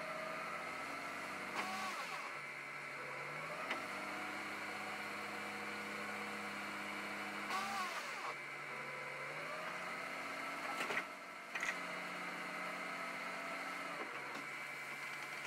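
Dump truck engine running while its hydraulic hoist raises the box to tip a load of dirt; the engine speed steps up and down a few times, with a faint whine rising and falling. A few short knocks are heard along the way.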